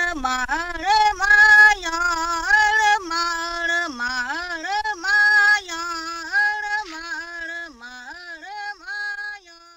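A woman's voice singing a slow melody alone, the notes scooping and gliding into one another; it grows softer in the last few seconds and stops just before speech resumes.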